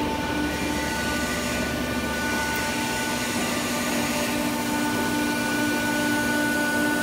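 W28K-89 pipe bending machine running through a bend: a steady machine hum carrying several steady whining tones, with a low rumble under it for the first two or three seconds.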